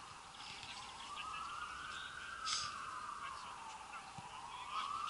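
Emergency vehicle siren wailing, its pitch slowly rising and falling, about one rise-and-fall every three and a half seconds. A brief sharp sound comes about halfway through.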